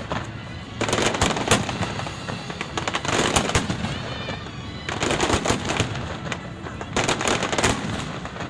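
Fireworks finale barrage: waves of rapid bangs and crackling shell bursts, about four surges each a second or so long, coming roughly every two seconds.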